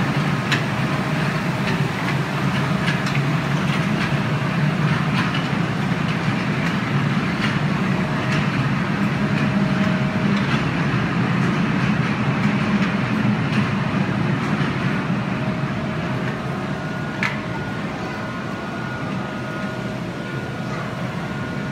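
Miniature ride-on train running along its small track: a steady low rumble with scattered clicks.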